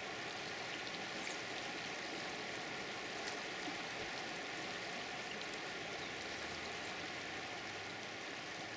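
Steady rushing of river water flowing among boulders.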